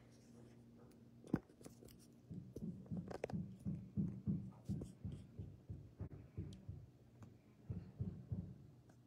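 Muffled, regular knocking, about two to three knocks a second, starting a couple of seconds in over a low steady hum.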